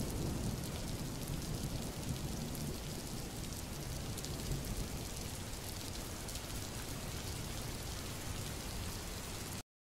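Torrential rain pouring onto a wet brick-paved courtyard, a steady even hiss of falling water. It cuts off suddenly near the end.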